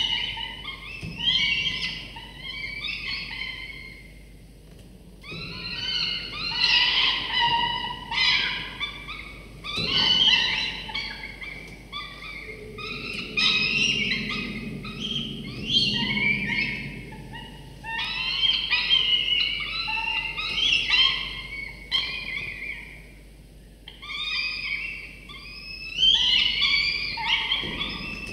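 Peregrine falcon chicks, about 24 days old, giving rapid, overlapping, high-pitched begging calls while being fed, in bouts with a couple of short lulls.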